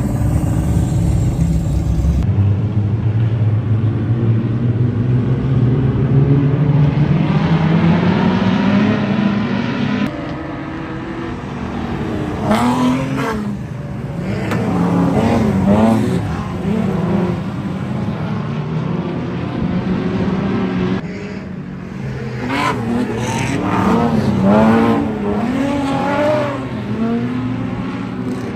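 Several dirt-track speedway stock cars racing, their engines climbing in pitch under acceleration and then rising and falling again and again as they rev up and lift off around the track.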